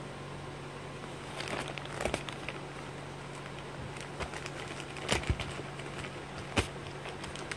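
A mailed package being cut and pulled open with a pocketknife: scattered crackling and rustling with several sharp clicks, the loudest about five and six and a half seconds in.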